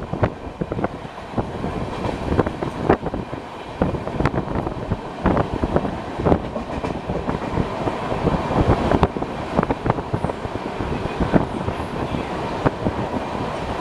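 Train running on the track at speed: steady rumble with wheels knocking irregularly over rail joints and points, several clacks a second.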